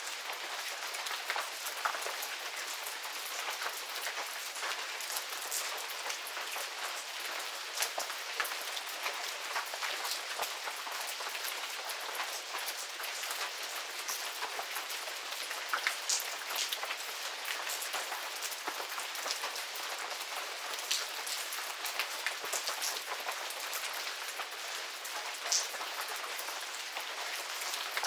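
Medium rain falling steadily in a garden, a continuous hiss scattered with the crisp ticks of individual drops hitting nearby surfaces, a few louder close drop hits standing out.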